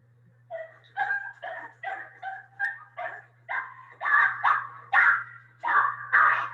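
A dog barking and yipping in a quick run of about fourteen short barks, roughly two a second, growing louder in the second half, over a steady low hum.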